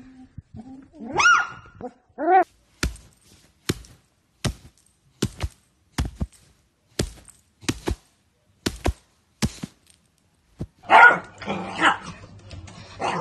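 A beagle puppy gives two short rising-and-falling yelps. Then comes a string of about nine sharp thumps, roughly one a second, followed by a louder, busier jumble of noise.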